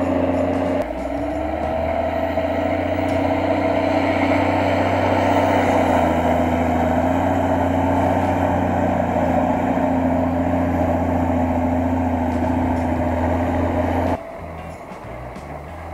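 Claas Xerion 5000 tractor engine running steadily under load while pushing and compacting chopped maize silage, its note wavering slightly in pitch. The sound cuts off abruptly shortly before the end.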